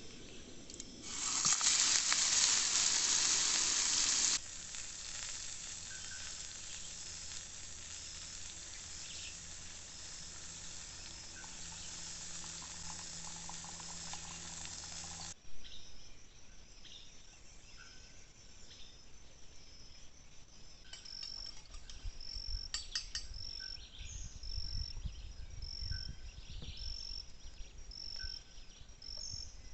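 Food frying in a hot pan: a loud burst of sizzling about a second in, settling into a steady frying hiss. About halfway through it cuts off abruptly to insects, crickets, calling in a steady, evenly repeating pulse.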